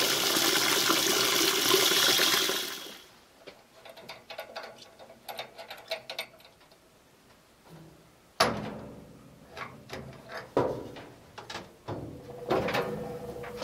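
Water from the water heater's drain hose pouring and splashing into a half-full bucket as the tank is drained, stopping about two and a half seconds in. Then light metallic clicks and knocks of a wrench and pipe fittings being handled, the sharpest knock about eight seconds in.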